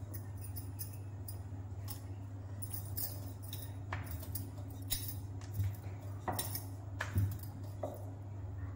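Bangles clinking and jingling in short scattered bursts as hands pinch spinach puri dough into balls and start rolling one out with a rolling pin, over a steady low hum.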